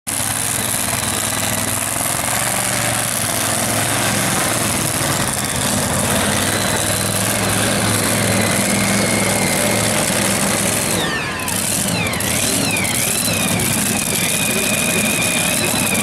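Modified two-wheel-drive pulling truck's engine running at low speed while the truck maneuvers into place for a pull. From about eleven seconds in, a high whine joins it, dropping in pitch and then wavering.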